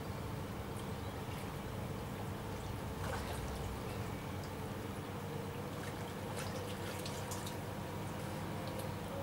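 Shallow river water running and trickling steadily, with a few faint clicks scattered through it.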